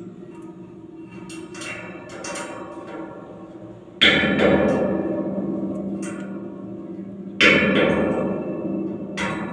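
Large welded steel fan impeller struck twice, about 4 s and 7.5 s in, each knock leaving the sheet steel ringing like a gong and dying away slowly; lighter metal clinks come before the first knock and just before the end.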